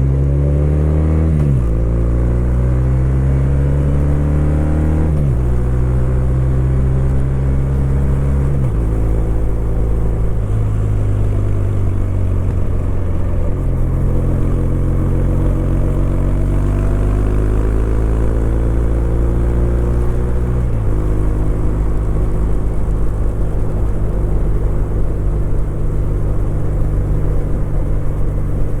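Kawasaki W800's air-cooled parallel-twin engine pulling through the gears: the revs climb and drop at three upshifts in the first nine seconds or so, then it runs at a fairly steady cruise with another shift later on. Little wind noise comes through.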